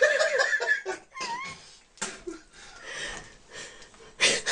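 A domestic cat giving a short, wavering meow about a second in, after a moment of laughter. A short loud burst of noise comes near the end.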